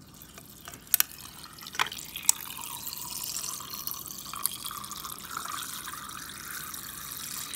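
A refrigerator door water dispenser running a steady stream of water into a glass mason jar, a continuous splashing hiss. A few sharp clinks come in the first two seconds.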